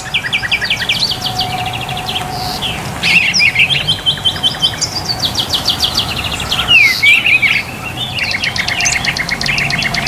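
Songbirds singing: fast trills of short repeated chirps that follow one another without pause, with a quick falling whistle about seven seconds in.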